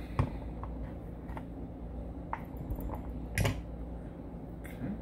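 Light metallic clicks and taps from handling a brass Evva 3KS lock cylinder during disassembly: a few scattered clicks, with one louder clink about three and a half seconds in.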